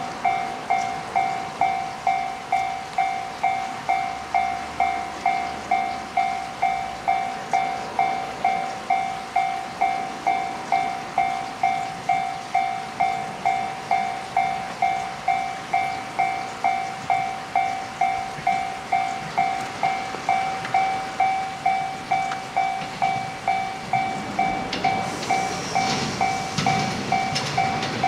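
Level-crossing warning bell ringing steadily, about two rings a second, each ring fading quickly. Near the end the rumble of an approaching 115-series electric train rises beneath it.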